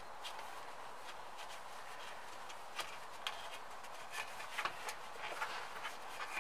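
Cloth wiping and rubbing over the pump head and housing of a small air compressor, with soft scrapes and small ticks at irregular intervals. The compressor is not running.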